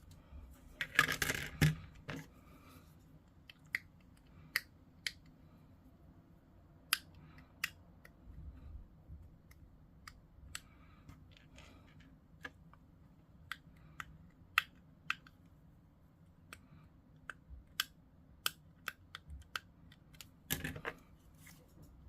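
Hobby sprue cutters snipping small plastic miniature parts off a sprue, with the parts and sprue being handled: sharp clicks and snips at irregular intervals, with a longer rustle about a second in and another near the end.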